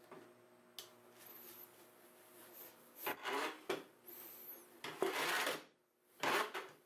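Table saw rip fence being slid over the plywood tabletop, wood and metal rubbing in about five short scraping strokes from about three seconds in, over a faint steady hum.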